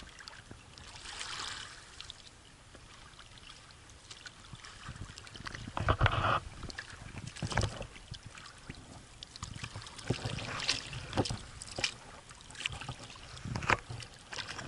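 Choppy waves slapping and splashing against a small paddled boat, with a loud splash about six seconds in and more irregular splashes later.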